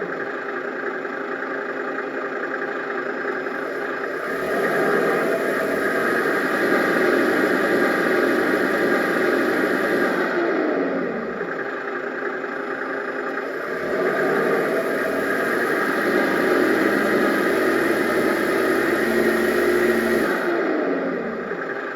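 Simulated engine sound from a TBS sound module's speaker in a Traxxas TRX-4 Defender 110 RC crawler, idling and then rising to a louder running sound twice for about six seconds each, falling back to idle each time.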